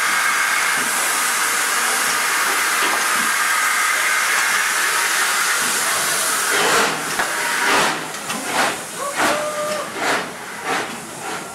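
Ol49 steam locomotive blowing off steam at its cylinders in a loud, steady hiss. About seven seconds in, the hiss gives way to rhythmic exhaust chuffs, roughly two a second.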